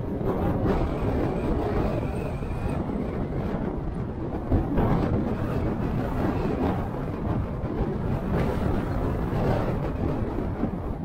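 A car driving along a road: a steady rumble of road, tyre and wind noise. A faint high whine runs for a couple of seconds near the start, and there is a short thump about halfway through.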